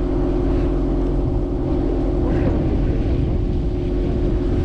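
Fishing boat's engine running steadily, a constant low drone with a fixed hum.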